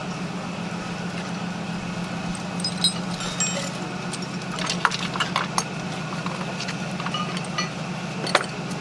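A truck engine idling steadily, with scattered light metallic clinks and jingles, about four clusters, the loudest near the end.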